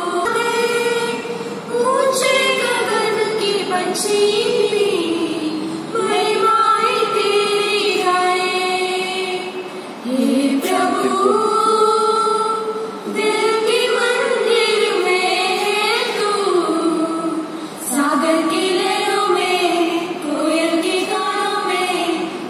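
A small group of young women singing together into a microphone, in phrases of long held notes that break every few seconds.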